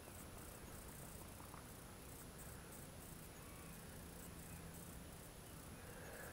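Near silence: a faint, steady, high-pitched hiss.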